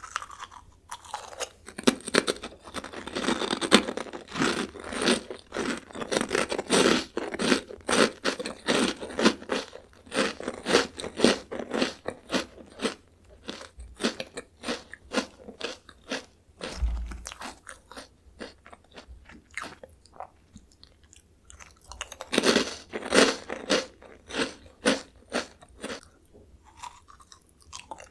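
Close-miked crunching and chewing of Jagalchi, a crispy seafood-flavoured Korean bag snack. Dense runs of crunches over the first dozen seconds thin out to sparser chewing, then another run of crunches comes a little after twenty seconds.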